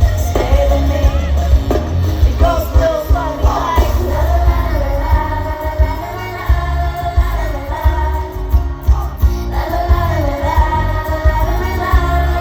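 Live pop song through a concert sound system: female voices singing a melody over a heavy, pulsing bass beat.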